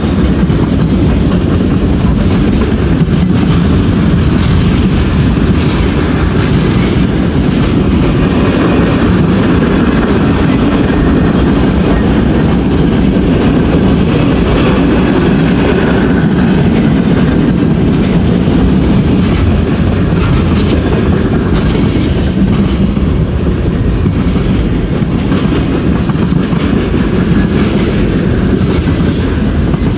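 Freight train of covered hoppers and tank cars rolling past at close range: a steady, loud rumble of steel wheels on rail with repeated clicks over the rail joints.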